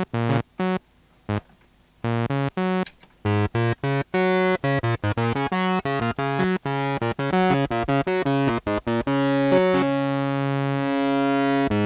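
Synthesizer playing a quick pattern of short staccato notes, with a brief pause about a second in, heard dry without the flanger at first. Near the end it moves to longer held notes.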